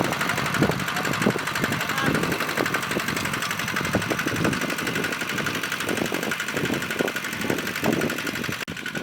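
Diesel engine of a two-wheel hand tractor running steadily with a fast, even knocking beat.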